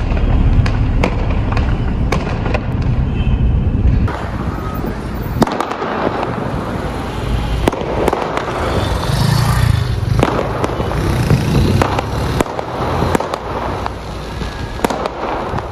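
Fireworks and firecrackers going off, both bursting overhead and set off at street level: many sharp bangs and pops, scattered irregularly, over continuous crackling.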